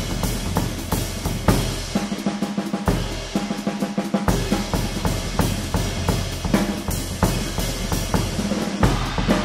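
Jazz drum kit played in a busy, dense pattern of snare and bass-drum hits with cymbals and hi-hat, over low held notes.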